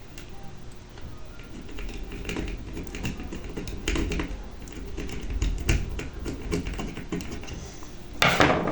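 Irregular small clicks and taps of a circuit board and small parts being handled, with one louder, short scraping rustle about eight seconds in.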